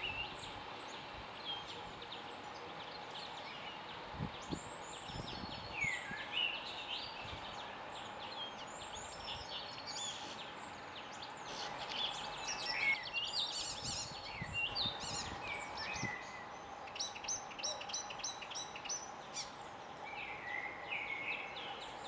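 Icterine warbler singing: a fast, varied stream of chattering and whistled notes, with short downward-sliding whistles and, in the later part, a run of quickly repeated high notes.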